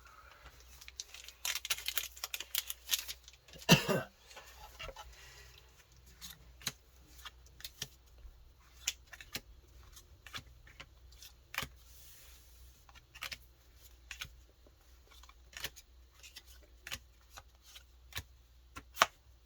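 A Dragon Ball Super Card Game booster pack's foil wrapper being torn open, with a burst of crinkling from about one and a half to four seconds in. Scattered light clicks and rustles of the cards being handled follow.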